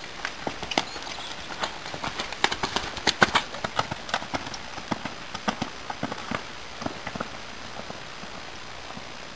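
Hoofbeats of a grey Connemara pony gelding moving over a sand arena surface. They are loudest about three seconds in, then thin out and fade as the horse moves away.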